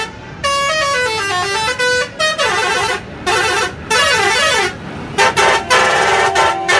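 A truck's multi-tone musical horn playing a tune of stepped notes in several loud blasts with short breaks between them. About four seconds in, it switches to a fast up-and-down warble.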